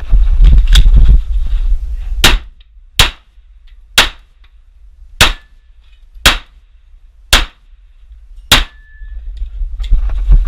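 Glock 34 Gen4 9mm pistol firing seven single shots at about one a second, each a sharp crack with a short echo. A loud low rumble fills the first two seconds and comes back near the end.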